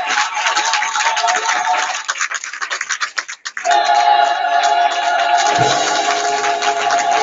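Choir and congregation singing a gospel song with hand-clapping. About three and a half seconds in the sound dips briefly, then loud held notes come in, and a low bass line joins about two seconds later.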